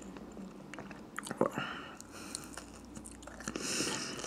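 Close-up mouth sounds of a person chewing a bite of strawberry Eggo waffle: soft, wet chewing with small clicks. There is one sharper click about a second and a half in and a short hiss near the end.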